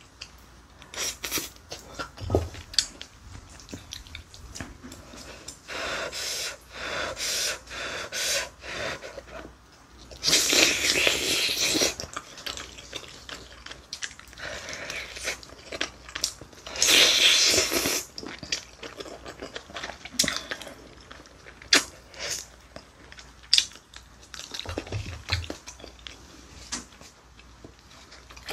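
Close-up eating sounds of a person chewing and sucking meat off a pork back-bone from gamja-tang. Many small wet clicks are heard, and there are two longer, louder slurping stretches about ten and seventeen seconds in.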